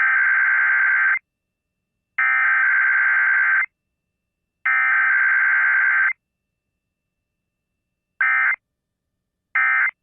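Emergency Alert System SAME digital data tones opening a weekly test: three bursts about a second and a half each with about a second between them, then, after a longer gap, three much shorter bursts about a second apart near the end.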